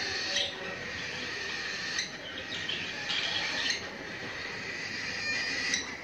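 Cockatiel chick begging with harsh, buzzy calls while an adult cockatiel feeds it, the calls running on almost without pause and breaking briefly twice.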